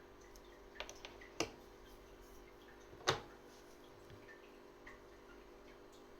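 A few light clicks and taps of hand tools being handled during leatherwork, the loudest about three seconds in, over a faint steady hum.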